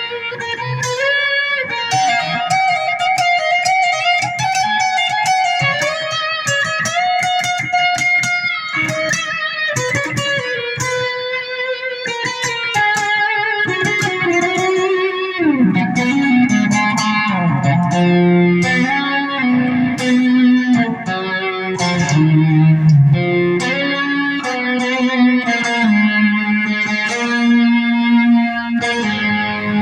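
Firefly FFST Floyd Rose-equipped electric guitar played through an amp: quick lead runs of picked notes and held, wavering notes, with a note swooping down in pitch about halfway through.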